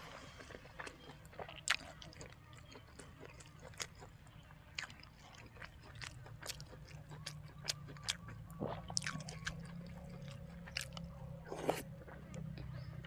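Close-miked eating: a person chewing and biting food, with frequent sharp, irregular crunches and clicks.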